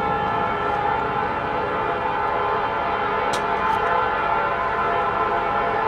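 Nathan P5 five-chime air horn on a CN C40-8W locomotive, coming on at the start and held as one long, steady chord, over the low rumble of the approaching train.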